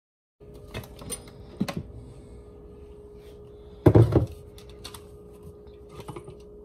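Plastic blender pitcher and its lid being handled on a countertop: a few light knocks and clicks, with one heavier thunk about four seconds in, over a steady low hum.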